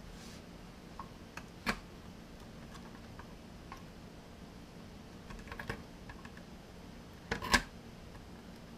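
Light clicks and taps of metal and plastic as a 2.5-inch SSD and the Intel NUC's bottom lid and drive bracket are handled and fitted together by hand. There is a sharp click about two seconds in, a few small taps around five and a half seconds, and the loudest double knock at about seven and a half seconds.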